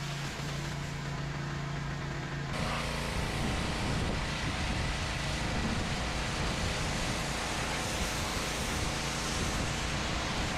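Gas pressure washer running steadily, its engine humming under the hiss of the high-pressure jet blasting a concrete walkway. About two and a half seconds in, the spray hiss grows louder and covers the engine tone.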